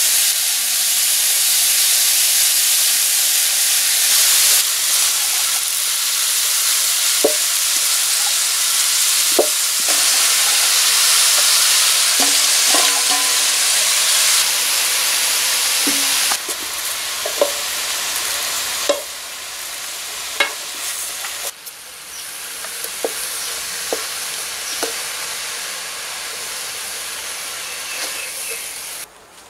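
Shredded cabbage sizzling in a hot metal wok as it is tipped in and stirred, with occasional light clinks of metal against the pan. The sizzle steps down in loudness a few times in the second half.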